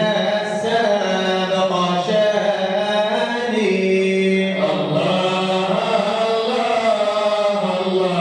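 Arabic madih chanting: a Sufi qasida in praise of the Prophet sung without percussion, in long melodic lines with held, slowly bending notes.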